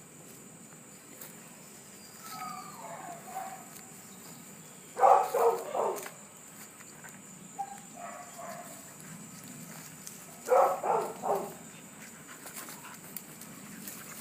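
Dogs barking in two short bouts of a few quick barks each, the first about five seconds in and the second about five seconds later.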